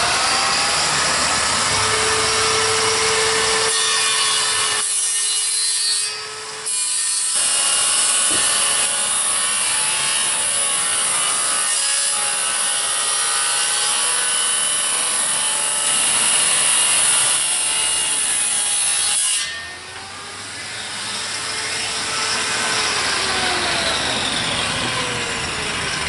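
Power saw cutting through the wood bottom panel of a sectional garage door, trimming it along a line scribed to the floor so the door will sit down over the gaps. It runs steadily, with a brief break about six seconds in and another about two-thirds of the way through before it picks up again.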